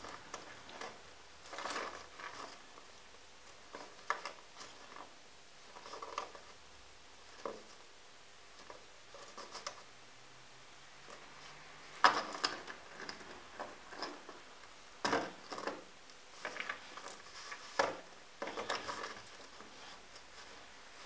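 Buttons being strung onto a needle and thread: irregular small clicks and rustles as the buttons knock together and the thread is pulled through their holes, with a sharper click about twelve seconds in.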